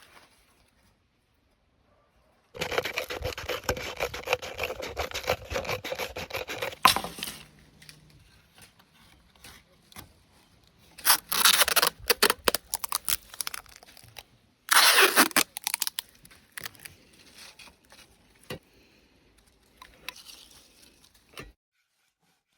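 Rough scraping of a tool working the scythe, in three bursts: a long one of about four seconds, then two shorter ones, with scattered clicks and knocks between them.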